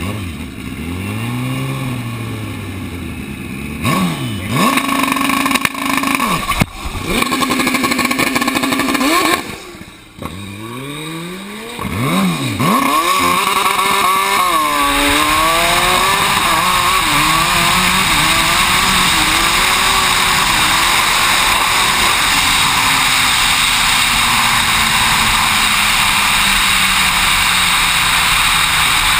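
Drag-racing motorcycle engine revved in short blips on the start line, then opened to full throttle before halfway, its pitch climbing through quick gear changes. After that a steady rush of wind over the onboard microphone dominates while the engine note slowly falls as the bike coasts down.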